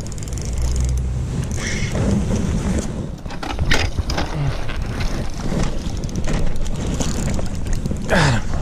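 Wind rumbling on the microphone while a spinning reel is cranked to bring in a hooked lake trout, with a few sharp splashes as the fish thrashes at the surface about four seconds in.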